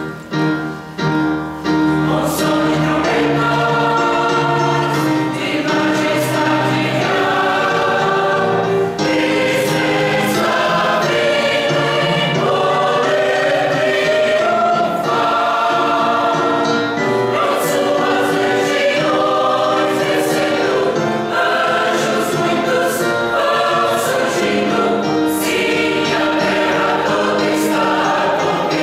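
Church choir singing a gospel hymn in held chords, the full choir coming in about two seconds in.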